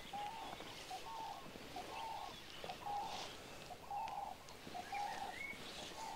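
A bird calling over and over, a low hooting note repeated about every half second or so, with faint higher chirps from other birds.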